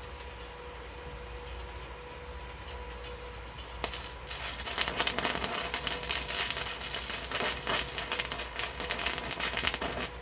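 Welding arc from a Daiden 300-amp inverter welding machine, crackling densely and unevenly. It strikes about four seconds in and stops just before the end. Before it there is only a steady faint hum.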